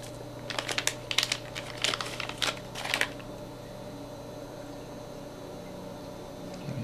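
Packaging of a new laptop hard drive being opened by hand: a quick run of clicks and crinkles for about two and a half seconds, then only a steady low hum.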